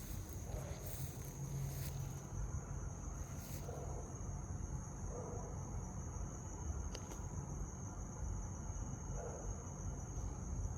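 Insects, crickets or similar, trilling as one steady high-pitched tone, over a constant low rumble.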